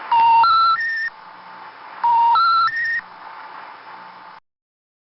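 Telephone intercept special information tone heard over a phone line: three steady beeps rising in pitch, played twice, over line hiss. It signals that the call cannot be completed, here before the Amsterdam intercept announcement. The hiss cuts off suddenly near the end.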